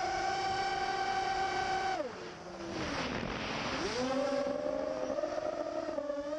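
Brushless motors and propellers of a 5-inch FPV racing quadcopter (Cobra 2204 2300KV motors on 4S), heard from on board, whining at a steady high pitch. About two seconds in the whine drops sharply as the motors slow and a rushing noise takes over. About four seconds in the whine climbs back and rises and falls with the throttle.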